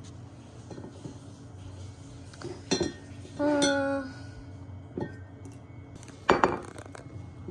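Glass wine bottles being handled on a table, clinking against each other and knocked down on the tabletop three times, the last one, about six seconds in, the loudest. A short ringing tone sounds a little past the middle.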